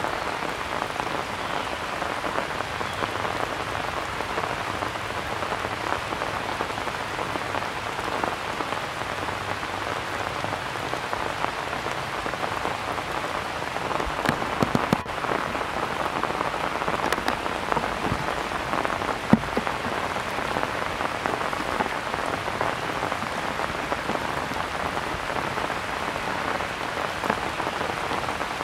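Steady rain falling on leafy vegetation, an even patter throughout, with a few sharper drop taps about halfway through.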